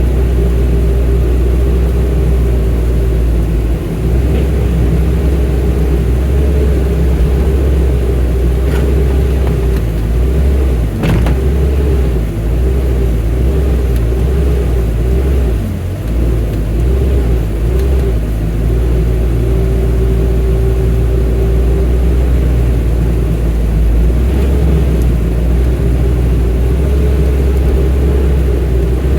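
Excavator's diesel engine running, a deep steady drone with a steady higher tone over it that dips and swells as the machine works. A single sharp knock comes about eleven seconds in.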